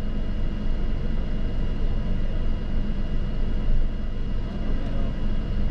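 Steady low rumble of a vehicle, with a faint steady high whine over it.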